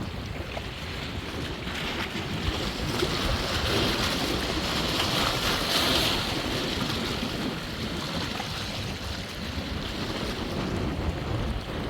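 River waves whipped up by a strong gale, splashing and surging against the bank, with the wind buffeting the microphone as a steady low rumble. The wash swells to a peak about four to six seconds in, then eases.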